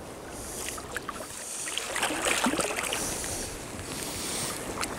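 Shallow seawater splashing and sloshing as a hooked sea-run brown trout thrashes at the surface beside a wading angler, louder from about two seconds in.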